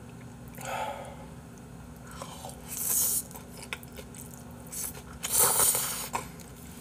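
A person eating close to the microphone: three short slurps of spicy noodles wrapped with boiled pork, about a second, three seconds and five and a half seconds in, with chewing between them.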